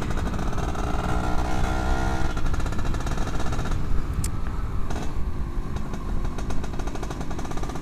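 Yamaha F1ZR two-stroke 110cc single running through a bored-out stock exhaust, the engine note shifting in pitch with the throttle while riding.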